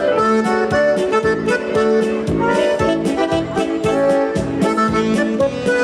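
Polka band playing an instrumental passage led by accordion, over a steady oom-pa beat.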